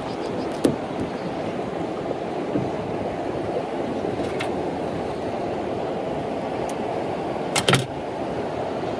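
Steady wind rumble on the microphone over choppy river water, with a few sharp knocks, the loudest a quick double knock near the end.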